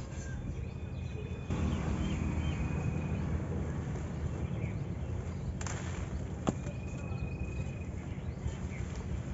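Outdoor ambience under trees: birds calling with short, high whistled notes now and then, over a steady low rumble on the microphone that grows louder about a second and a half in. A single sharp click sounds about six and a half seconds in.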